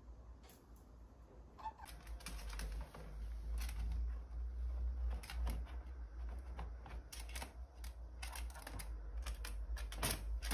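Irregular light clicks and taps from a pet black-headed caique moving about on a floor and a plastic storage basket, sparse at first and more frequent from about two seconds in, over a steady low hum.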